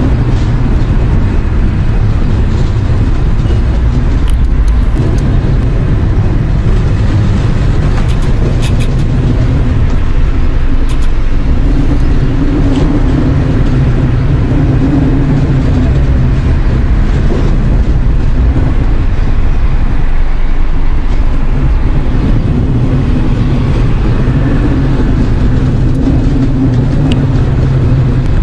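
Loud, steady low rumble with a droning hum that swells and fades every few seconds, the kind of unexplained drone circulated as a mysterious 'strange sound'.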